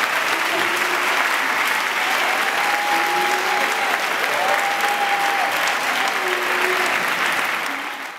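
Audience applauding, with a few voices calling out over the clapping; it fades out near the end.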